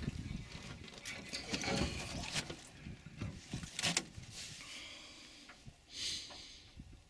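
Irregular knocks, scrapes and rustles of a freshly landed fish and fishing line being handled on the wooden floorboards of a small metal boat, with a brief hiss near the end.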